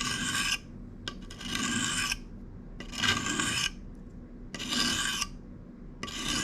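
Pocket knife blade drawn across the coarse face of a three-sided sharpening stone: about five gritty scraping strokes, each under a second, at a steady pace of roughly one every second and a half.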